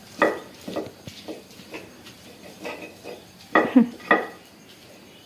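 A metal cooking utensil knocking and clinking against a pan while food is stirred: about ten irregular strikes with a short ring, the loudest a pair near the end.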